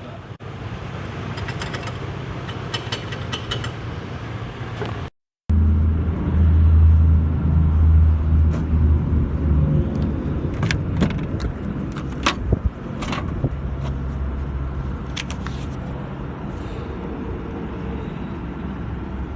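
A motor vehicle running with a steady low drone, with jingling metallic clicks early on and scattered sharp clicks and knocks after a brief cut about five seconds in.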